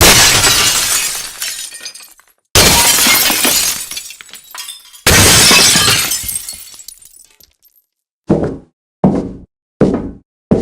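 Glass shattering: three sudden crashes a couple of seconds apart, each trailing off as the pieces ring and settle. Then four short, separate smashes in quick succession.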